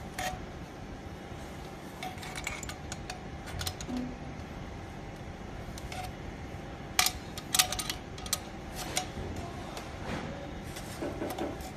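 Adjustable wrench clicking and tapping against the nut of a steel exhaust clamp as it is tightened on the pipe: scattered sharp metal clicks, with a cluster of louder ones about seven to nine seconds in.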